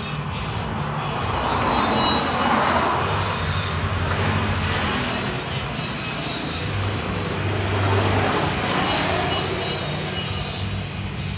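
Road traffic going by, its noise swelling as a vehicle passes twice, with a steady low hum underneath.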